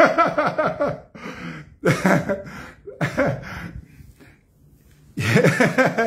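A man laughing in short breathy bursts, with gasps for breath between them, then saying a few words near the end.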